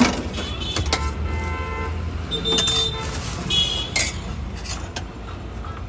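Busy street traffic rumbling, with vehicle horns sounding several short times, and a steel ladle clinking against steel pots and bowls, loudest right at the start.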